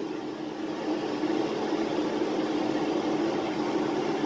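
Beef filling simmering in a cast-iron skillet while two wooden spatulas stir it, over a steady low hum.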